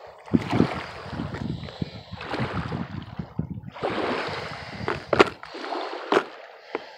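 Wind buffeting a phone's microphone, an uneven rushing with low rumble, with two sharp handling knocks about five and six seconds in.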